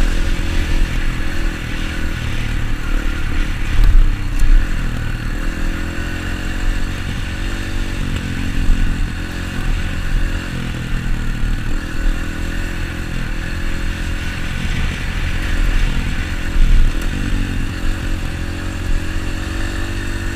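Dirt bike engine running while riding, its pitch rising and falling as the throttle opens and closes.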